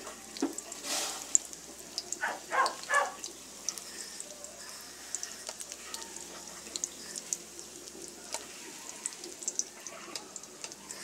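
Cheese sticks shallow-frying in hot oil in a pan, sizzling with scattered small pops and crackles. A brief voice is heard about two seconds in.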